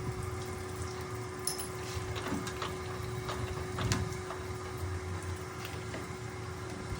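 Manual metal lathe running with a steady motor hum and low rumble, with a few light clicks and scrapes in the middle.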